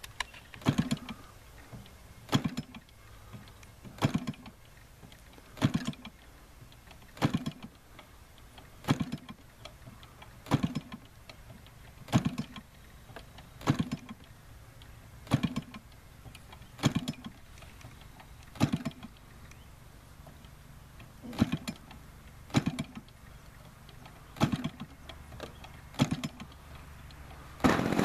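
A model airplane engine being hand-flipped by its propeller to start it: a sharp pop and thump on each flip, about one every second and a half, repeated over and over. The engine catches and runs at the very end.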